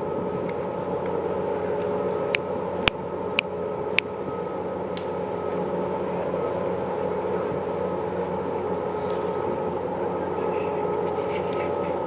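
Steady drone of a ferry's engines and machinery, several constant tones held under a noisy hum. Four sharp clicks come between about two and four seconds in.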